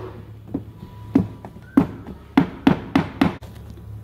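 A mallet tapping lightly on an Alfa Romeo 5-speed transmission's cast aluminium case: about eight sharp, irregularly spaced knocks, closer together in the second half. The tapping is meant to break the two machined, gasketless case halves apart without prying on the sealing surfaces.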